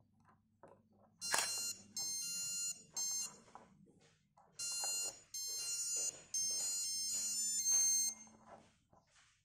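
Kessel Melody Calculator watch's piezo beeper playing a short electronic tune in several phrases of shrill, stepping beeps, with faint clicks of its small buttons being pressed before and between them.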